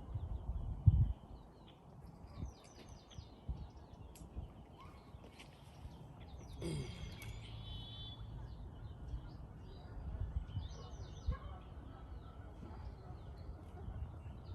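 Small birds chirping in short repeated phrases over a low outdoor rumble, with scattered knocks and a sharp thump about a second in.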